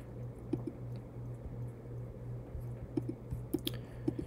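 A few faint, short computer mouse clicks, most of them bunched together about three seconds in, over a steady low electrical hum.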